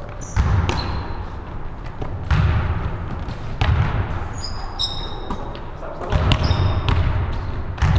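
Basketball thudding on a hardwood gym floor, with sneakers squeaking during play; the hits come irregularly, several times, and echo around the hall.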